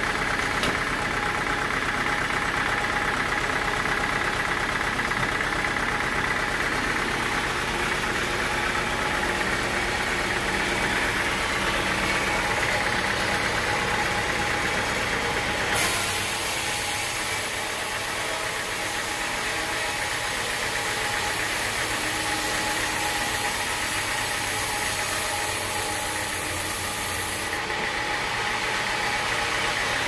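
Horizontal band sawmill running steadily with a constant hum. About halfway through a high hiss comes in as the band blade saws along a teak log. The hiss stops suddenly a couple of seconds before the end.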